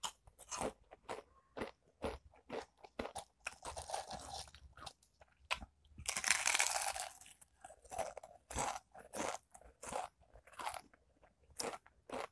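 Close-up crunching and chewing of Mister Potato ghost pepper potato crisps, bite after bite in short sharp crunches, with a longer, louder burst about six seconds in.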